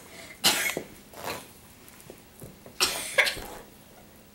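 Italian greyhounds huffing in play as they wrestle: a few short, breathy bursts, the loudest about half a second in and again around three seconds in.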